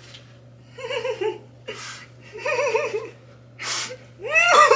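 A woman laughing without words in three short, high-pitched, pulsing bursts, each preceded by a sharp breath in.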